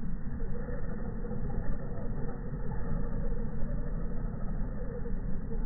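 A steady, muffled low rumble with no high end, the kind wind buffeting and a small vehicle's running gear give through dull or slowed-down audio.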